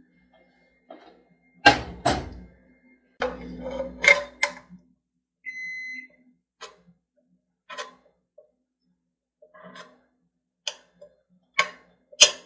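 Metal serving spoon knocking and scraping against a cooking pot and bowls as food is scooped out, in a string of separate clinks and knocks. About halfway through, a single short electronic appliance beep sounds.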